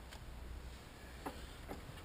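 A few faint, short clicks of small parts or hand tools being handled, over a low steady background hum.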